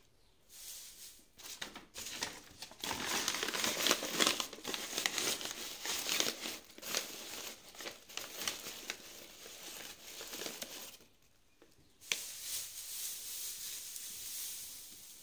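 A sheet of printed paper crinkling and rustling as hands fold it and press it down over mangoes packed in straw in a cardboard box, in irregular bursts with a short pause about eleven seconds in.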